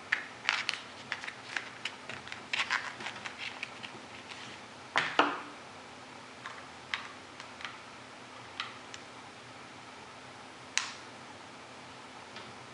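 Small plastic handling clicks and crinkles from a makeup kit and a brush's plastic sleeve: a quick run of clicks in the first few seconds, a louder rustle about five seconds in, then a few single clicks spaced out.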